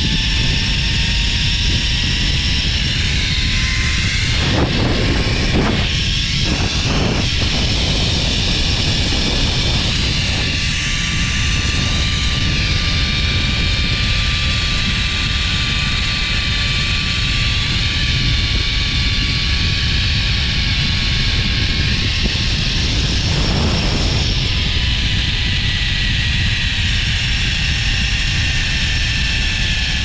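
Zip line trolley's pulley wheels running along the steel cable with a steady whine, over loud wind rush on the microphone. The whine rises a little in pitch in the first seconds as the rider gains speed and sinks slowly in the last several seconds as the trolley slows.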